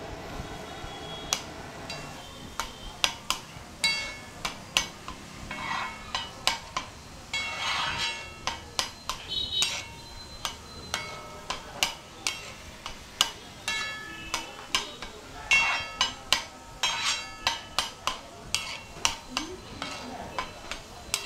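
Metal spatulas clanging and scraping on a large flat griddle as a heap of shredded cabbage is stir-fried, in many irregular ringing strikes. Short stretches of sizzling come between them.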